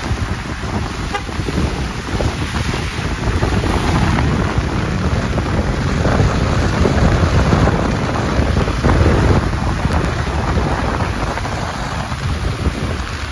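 Wind buffeting the microphone, with road noise from traffic on the wet, snow-covered street underneath; the rumble swells somewhat around the middle.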